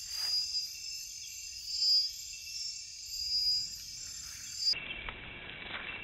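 Night chorus of rainforest insects: steady high trilling in several pitch bands, swelling and fading every second and a half or so. About three-quarters of the way in it cuts to a muffled, hissy camera-trap recording in which the insects go on more faintly.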